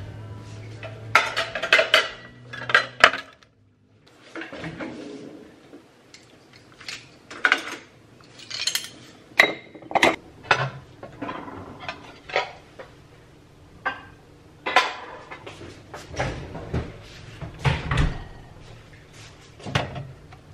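Ceramic plates, a glass bowl and cutlery clinking and knocking against each other and the kitchen counter, in many short, scattered clatters.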